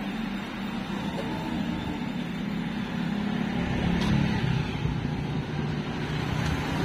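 Street traffic: a motor vehicle's engine running as a steady low hum, growing louder toward the end as it comes closer.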